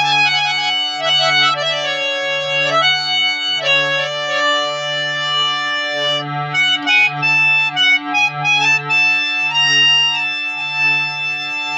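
German-made harmonium playing a melody over a low held note that pulses about once a second.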